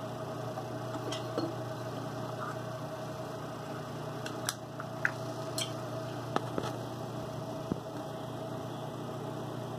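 Steady hum of workshop machinery running, with a few light clicks and taps about halfway through as the machined part is tried in place on the flooring edger.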